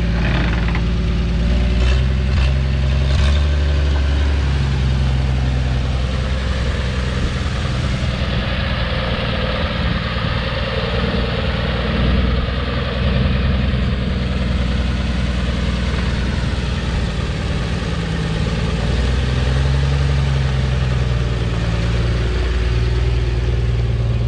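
1957 Chevrolet pickup's engine running as the truck moves slowly, its engine speed rising and easing a few times.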